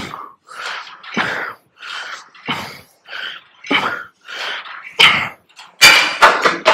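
A man breathing hard through the mouth in quick, rhythmic breaths, about two a second, from the effort of a high-rep set of seated cable rows. The breaths get louder and more strained near the end.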